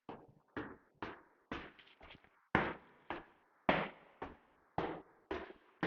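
Footsteps on a hard floor, a steady walking pace of about two steps a second, each step echoing briefly in an empty room.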